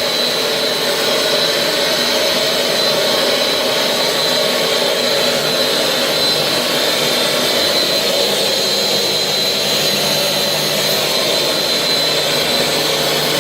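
Britex carpet cleaning machine's vacuum motor and pump running steadily and loudly, with a high, even whine.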